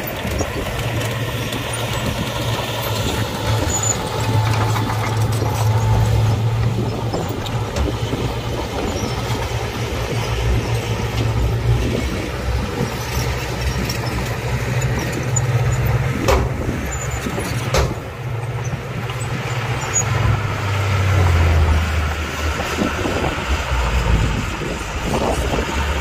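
Heavy diesel engine of earthmoving machinery, a bulldozer or dump truck working soil, running steadily under load. Its pitch drops a little about three-quarters of the way through. Two sharp knocks sound, one and a half seconds apart, about two-thirds of the way in.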